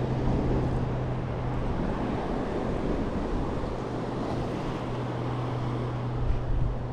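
Sea surf and wind buffeting the microphone, under a steady low engine-like hum. The hum grows briefly louder twice near the end.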